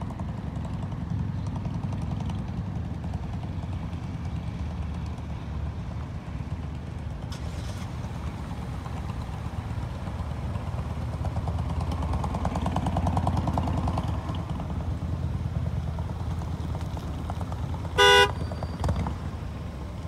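Low, steady engine rumble of a lake freighter passing close by. Near the end comes one short, loud horn toot.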